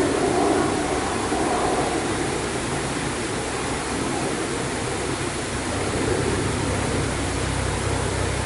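Steady rushing noise of running water. A low engine hum comes in over the last couple of seconds and grows louder.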